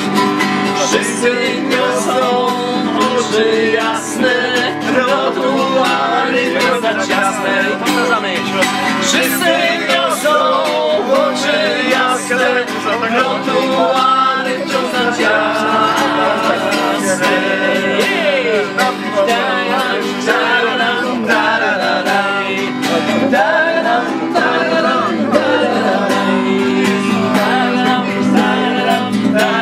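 Background song with guitar and a male singing voice.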